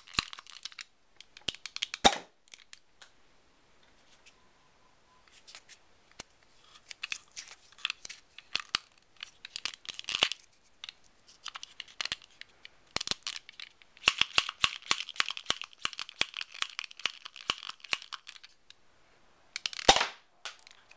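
Close handling noise from a small plastic Nerf pocket blaster and its foam dart being turned over in the fingers: irregular scratchy clicks and crackles with quiet gaps, a dense stretch near the end, and two louder knocks, one about two seconds in and one near the end.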